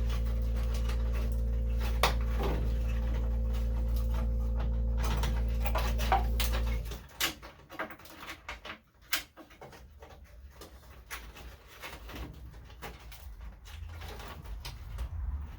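A steady electrical hum, which cuts off suddenly about seven seconds in, under intermittent clicks and knocks of small parts being handled. After the hum stops, quieter handling and rustling go on.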